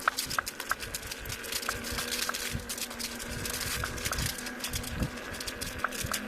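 Kingsong S22 electric unicycle's hub motor running with a steady hum, and sharp knocks repeating through it: a fault knock in the newly fitted replacement motor.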